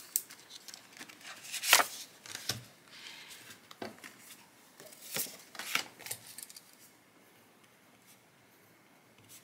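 Plastic cash envelopes and paper inserts of a ring budget binder being handled, rustling with a string of sharp clicks; the handling noise dies down after about six seconds.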